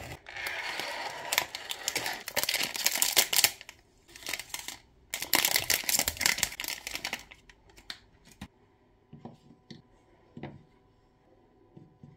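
Foil ice-cream wrappers crinkling and tearing as they are pulled open, in three stretches over the first seven seconds. After that, a few light taps and clicks as the bars are set down on a bamboo tray.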